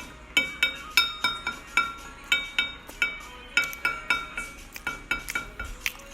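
Metal bowl clinking again and again, each knock ringing briefly at the same bell-like pitch, about two to three knocks a second at an uneven pace.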